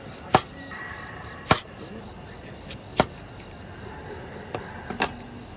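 Four sharp knocks, spaced about one to two seconds apart, over a steady faint hiss.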